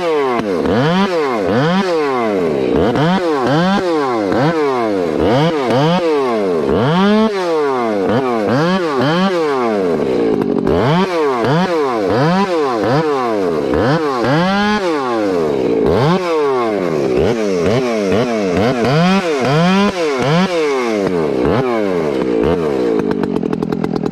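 Makita gas chainsaw cutting limbs off a felled tree, revving up and dropping back over and over, about once a second. It falls to idle briefly a couple of times and again near the end.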